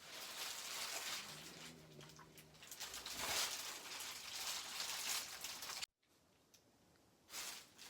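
Strong bubble wrap being squeezed and crinkled, a dense crackling, mixed with heavy breathing. It cuts off suddenly near the end, leaving a quieter stretch with one short burst.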